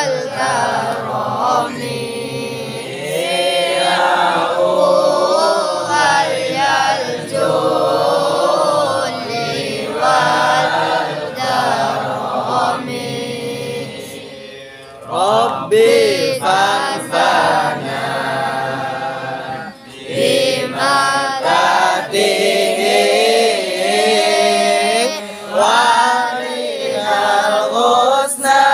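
A group of voices chanting Islamic devotional verses together. The chanting dips briefly about halfway through, then comes back in.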